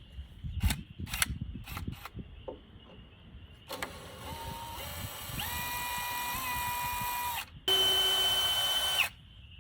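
Power drill running in two bursts. The first lasts about three and a half seconds, and its motor whine steps up in pitch partway through. After a short pause comes a louder burst of about a second and a half that cuts off suddenly. A few sharp clicks come before the drilling.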